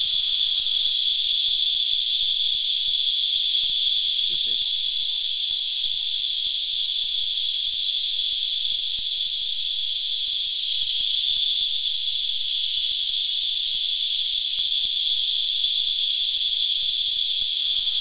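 Cicadas singing: a loud, steady, high-pitched whine that holds without a break.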